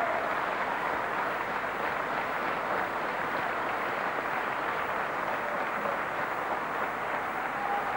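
Audience applauding: a steady, even clapping of many hands, holding at a constant level throughout.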